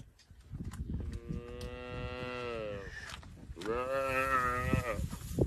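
A calf bleating in distress while a spotted hyena feeds on it alive: two long drawn-out calls, the first about a second in and the second about three and a half seconds in, each dropping in pitch at the end, over low rustling.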